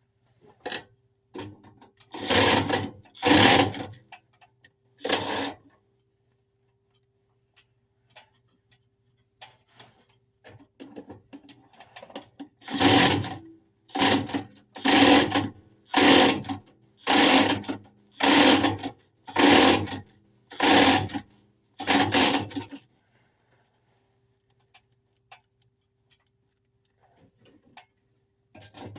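A small motor run in repeated short bursts. There are three near the start, then a steady run of about eight, a little over a second apart, over a faint steady hum.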